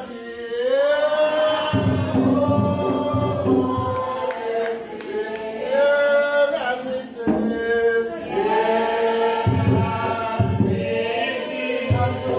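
A group of voices singing a hymn together in long held notes, with hand percussion such as a tambourine rattling along.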